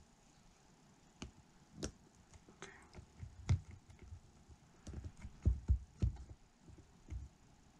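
Scattered light taps, clicks and low knocks from handling a soldering iron and 18650 battery cells while soldering, with a cluster of heavier knocks about five to six seconds in.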